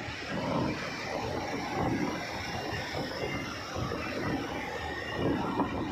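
Road noise of a moving vehicle in traffic: engine and tyre rumble that rises and falls unevenly, growing louder near the end.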